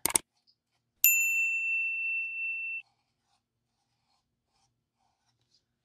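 A short click, then about a second in a single bright ding that rings for under two seconds and cuts off abruptly: the bell sound effect of an animated subscribe button.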